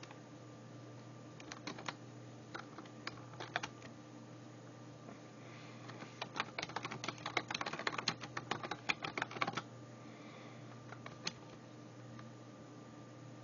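Typing on a computer keyboard: a few scattered keystrokes, then a quick run of typing lasting about three and a half seconds in the middle, and a last keystroke or two later, over a faint steady hum.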